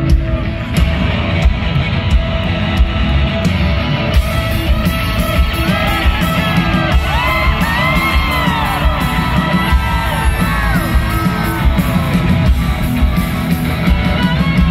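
Live rock band playing loud, with electric guitar and drums keeping a steady beat. Over the middle few seconds a singer's voice slides up and down over the band.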